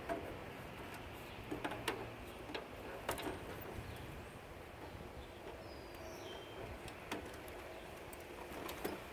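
Scattered light clicks and knocks of parts and tools being handled during a teardown, with a few faint high bird chirps about six seconds in.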